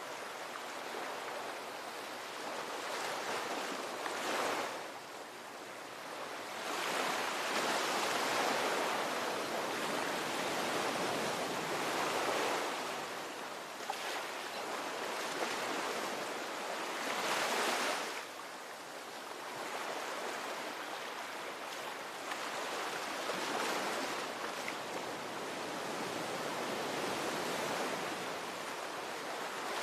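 Ocean waves washing onto the shore in a continuous surf, swelling and easing every few seconds as each wave breaks and draws back.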